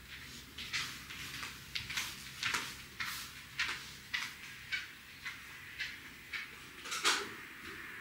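A string of short scraping and rustling handling sounds, roughly one every half second, over a faint low hum.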